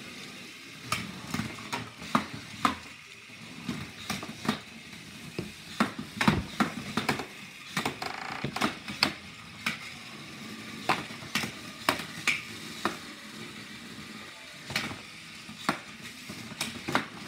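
Hexbug BattleBots toy robots clattering into each other and the plastic arena walls: a run of irregular sharp plastic clacks and knocks at a few a second, over a light hiss.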